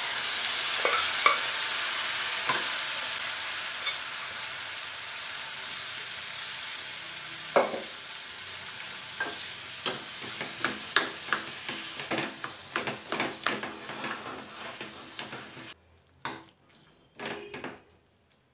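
Boiled elephant foot yam and bachali (Malabar spinach) greens hitting hot oil tempering in an aluminium pressure-cooker pan: a loud sizzle that slowly fades. From about halfway a spatula stirs and scrapes against the metal pan in quick strokes. The sound cuts off suddenly near the end, leaving a few faint knocks.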